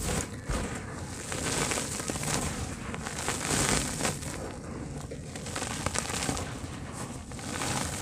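Dry, powdery dirt with small stones crumbled and squeezed by hand and sifted back onto the pile: a dense, gritty crackle with hissing swells each time a handful pours down.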